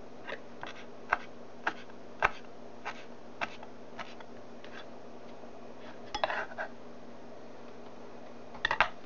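Kitchen knife chopping fresh cilantro on a plastic cutting board: single sharp knocks about two a second, then a couple of short clatters later on.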